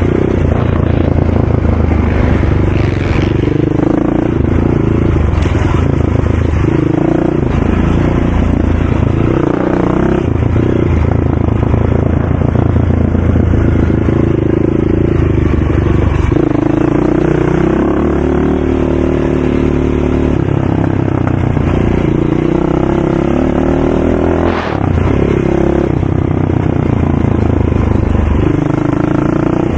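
Loud ATV engine revving up and easing off again and again, the pitch climbing and dropping every few seconds as it is ridden through a dirt track's turns and straights.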